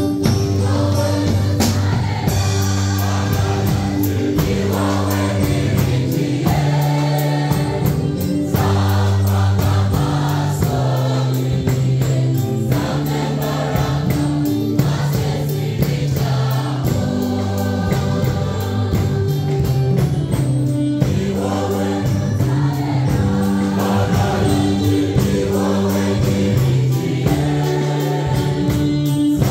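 A mixed school choir singing a song in Kinyarwanda, with amplified instrumental accompaniment that has a steady beat and a strong bass line.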